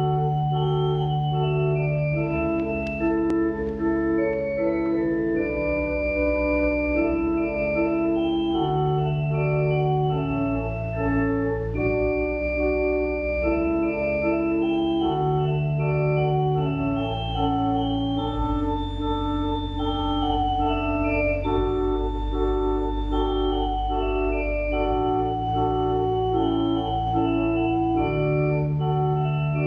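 Organ music: sustained chords moving every second or two over a deep bass line, an organ prelude.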